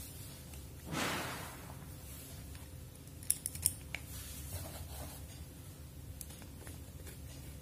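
Faint small clicks and scrapes of hand work on a two-way switch, with a wire being connected to its centre terminal. A soft rush about a second in, and a few sharp clicks near the middle.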